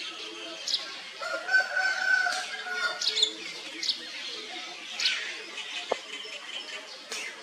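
A drawn-out animal call lasting about a second, starting a little over a second in, among scattered short, high chirps.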